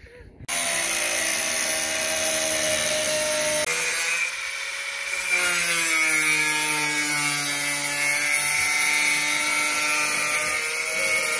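Angle grinder cutting into a car bonnet to open the hole for a bonnet vent. Its motor whine wavers in pitch as the disc bites. It starts about half a second in and eases off briefly about four seconds in before carrying on.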